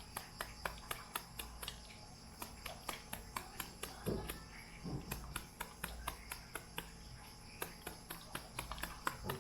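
Knife chopping vegetables finely: quick, fairly even taps, about three to four a second.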